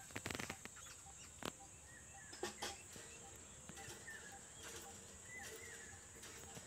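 A bird calling with short chirps that dip and rise, repeated about once a second from about two seconds in, over a steady high-pitched drone. A few faint knocks come in the first few seconds.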